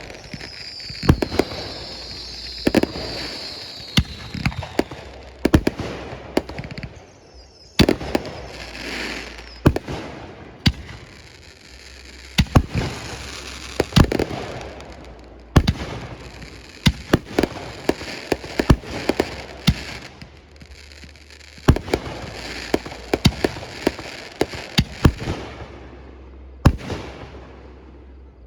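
Fireworks going off in quick, irregular succession: sharp bangs of bursting shells with crackling between them. A whistle falls in pitch over the first few seconds.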